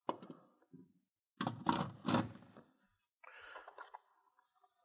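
Light handling knocks and clicks of the plastic i1Pro 3 Plus handheld spectrophotometer being set onto its calibration plaque on a table. These are loudest at about two seconds, and a soft rustle follows as a hand reaches into the foam-lined case.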